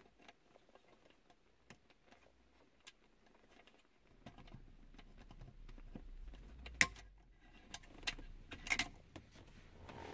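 Small clicks and rattles of pliers working at a plastic cigarette-lighter socket and its wiring, with a few sharp snaps, the loudest about seven seconds in, over a faint low rumble in the second half.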